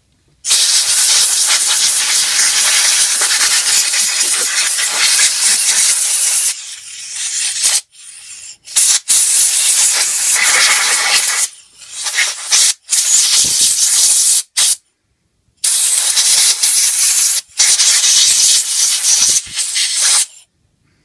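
Compressed-air blow gun blasting air through a small lawnmower carburettor to blow it clean: a loud hiss held for about six seconds, then a string of shorter blasts with brief gaps between them.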